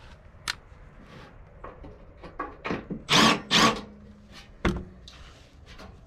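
Sheet-metal knocks and scrapes as a cut-off plate is fitted against a furnace blower housing, with a cordless drill briefly driving a screw into it. The loudest part is two short, noisy scrapes about three seconds in.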